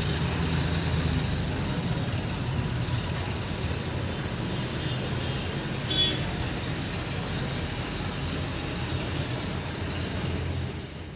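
A steady low hum over a background of noise, with one short sharp sound about six seconds in.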